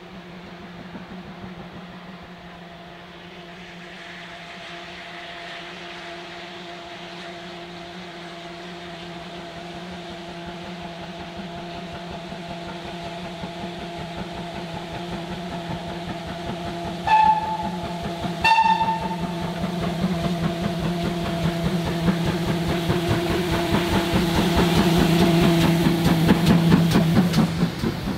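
Steam train approaching, its running sound growing steadily louder, with two short whistle toots a little over halfway through and the train close by near the end.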